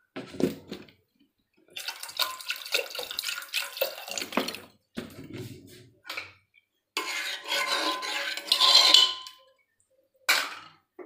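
Water being added to an aluminium pressure cooker of rice, lentils and vegetables and stirred in with a spoon: splashing, with the spoon clinking and scraping on the pot. It comes in several short bursts broken by sudden silences.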